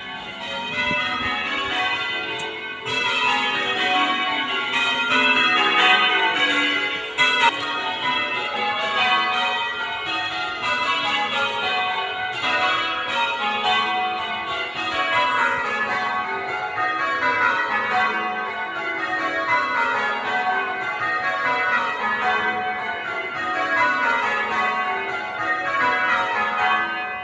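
Church tower bells change ringing: eight bells struck in a steady stream, their order shifting every row in the manner of a Surprise Major method.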